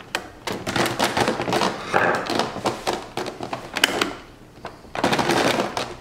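Flathead screwdriver tip scraping and clicking against the metal latch spring and pin on a Prolux CTX vacuum canister's latch while the spring is worked into position. A quick run of small clicks and scrapes eases off about four seconds in and picks up again near the end.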